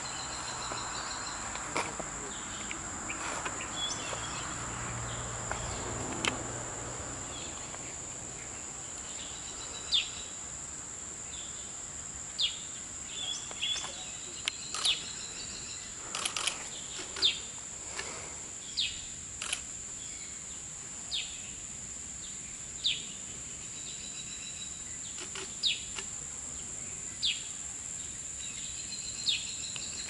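A steady, high-pitched insect drone throughout. From about a third of the way in, a bird gives short falling chirps, one every second or two.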